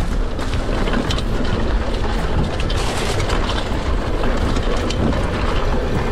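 Mountain bike riding fast down a dirt trail: tyres running over dirt and dry leaves, the bike rattling and clicking over bumps, with wind rumbling on the microphone.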